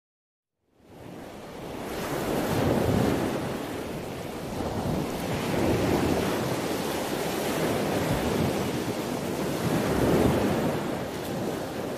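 A rushing, surf-like wash of noise fades in after about a second of silence, then swells and eases every three to four seconds.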